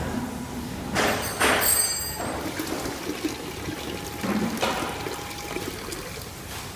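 Liquid squirting from a semi-automatic filling machine's nozzle into a small glass vial, coming in a few short splashing bursts.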